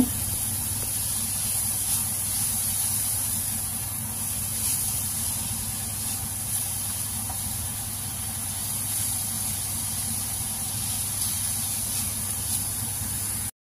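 Shredded cabbage and carrot sizzling in oil in a frying pan as a silicone spatula stirs them, a steady frying hiss with faint scrapes.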